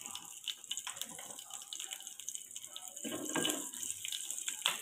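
Cumin seeds and chopped green chillies sizzling in a little hot oil in a frying pan: a steady high hiss with many small crackles.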